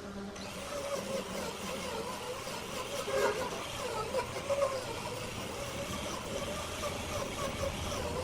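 A machine running steadily with a rushing noise and some wavering tones.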